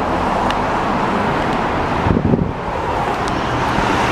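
Steady outdoor background noise: a broad rumble and hiss with a faint low hum, typical of road traffic and wind on the microphone.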